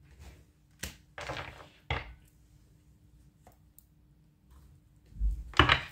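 Tarot cards handled on a tabletop: a few sharp taps and short rustles of cards, then a louder thump with a rustle near the end.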